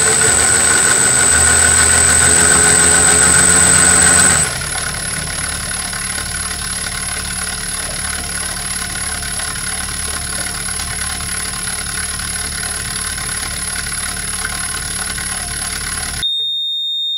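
Marksman Smart Pump's electric motor running as it pumps liquid into a tub, with a steady high-pitched whine. About four seconds in it drops to a quieter, lower running as the pump enters its slow-down mode. Near the end the pump stops and a single steady beep of about a second sounds, signalling that the barrel is full.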